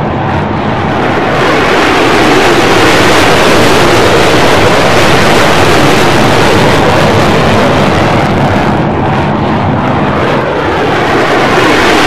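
Loud, steady rushing roar of engine noise, dipping slightly about a second in and again near the end.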